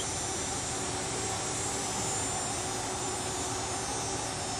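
A steady, even mechanical roar in the background, with a few faint steady tones running through it.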